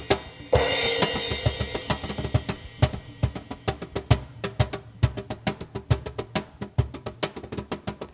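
Cajón played with rapid hand strikes, and a cymbal crash about half a second in that rings on and fades over the next two seconds.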